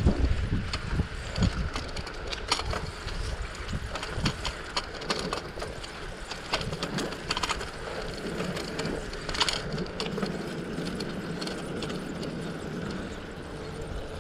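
A bicycle being ridden: irregular clicking and rattling from the bike over a steady low rumble of tyres and wind.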